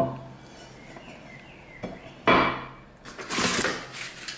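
A heavy enamelled cast-iron cocotte lid is set down on a wooden table with a single sharp knock and a brief ring. It is followed by two louder scraping, rustling bursts as the cardboard box holding the pot is handled.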